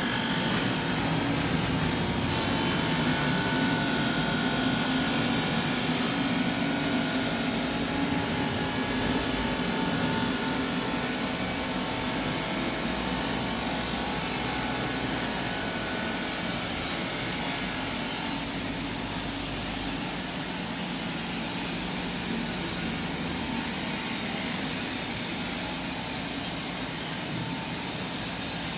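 Straight-line glass edging machine running: its grinding-head motors and belt conveyor make a steady mechanical hum with a whine over it, a little louder for the first ten seconds or so.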